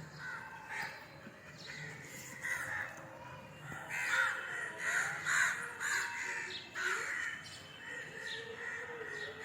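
Crows cawing: a series of harsh calls, thickest in the middle.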